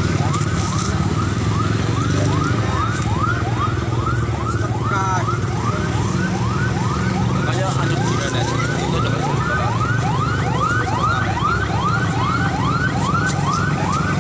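An emergency vehicle siren yelping, a fast rising sweep repeated about three times a second, over a steady low engine rumble.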